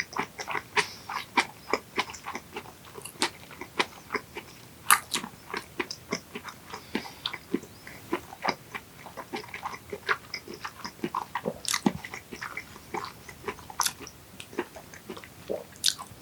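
Close-miked chewing of yellowtail sushi topped with aged kimchi: a steady stream of short, sharp, irregular mouth clicks.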